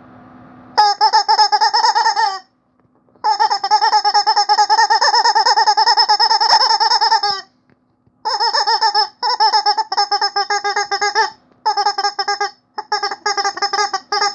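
Rubber chicken squeaky toy squeezed over and over, giving high, wobbling squawks in rapid pulses. They come in about five runs of one to four seconds each, with short pauses between, starting about a second in.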